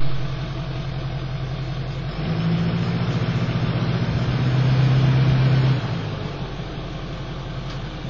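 A vehicle engine running steadily, heard through a security camera's microphone; it grows louder about two seconds in and eases back down about six seconds in.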